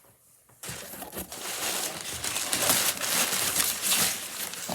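Packing material crinkling and rustling as hands dig through a shipping box, starting about half a second in and continuing steadily.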